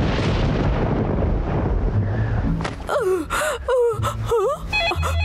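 A loud rushing whoosh that fades over the first two and a half seconds, then a cartoon bear's voice in several short sliding groans. Near the end a telephone starts ringing with a steady electronic warble.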